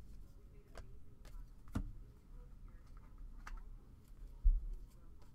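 Trading cards being flipped through by hand: scattered light clicks and snaps of card edges, with a dull thump about four and a half seconds in.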